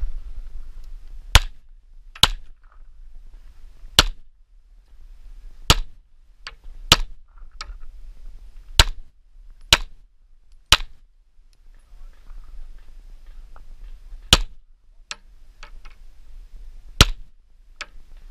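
Tanfoglio Stock II 9×19 mm pistol firing about ten single shots at a slow, deliberate pace, one to three seconds apart, with a few fainter sharp clicks between some of them.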